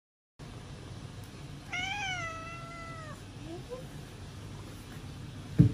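A tabby-and-white kitten meows once, a single call about a second and a half long that rises and then falls, followed by two short faint chirps. Near the end comes a loud thump, the kitten tumbling off the sofa arm.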